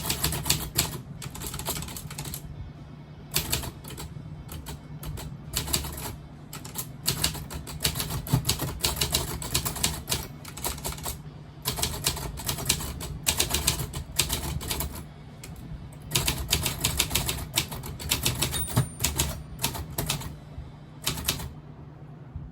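Predom Łucznik manual typewriter being typed on: runs of rapid key strikes, broken by short pauses every four to five seconds.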